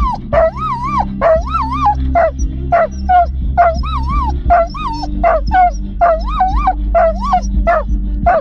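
Dog yelping and whining excitedly in a rapid run of high-pitched yelps, about two a second, each one wavering up and down in pitch, over a low rumble.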